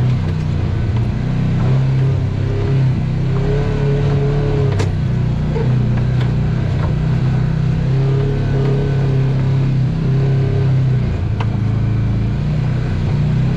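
Off-road vehicle's engine running steadily at low speed while rock-crawling, its pitch rising and falling a little with the throttle. There is a single sharp knock about five seconds in.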